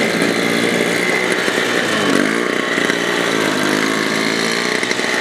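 Snowblower's small gasoline engine running steadily, its pitch dipping briefly about two seconds in.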